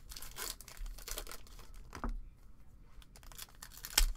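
Foil trading-card pack being torn open by hand, its wrapper tearing and crinkling, with a sharp click about two seconds in and a louder one near the end.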